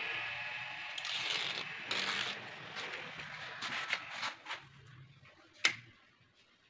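Red protective liner being peeled off double-sided tape on an aluminium cabinet shutter frame: a rustling, ripping noise in several pulls that dies away after about four seconds. A single sharp click comes near the end.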